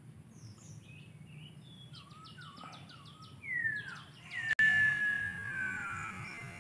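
Small birds chirping, with a quick run of chirps about two seconds in. About four and a half seconds in, a sharp click is followed by a long falling whistle, the loudest sound here.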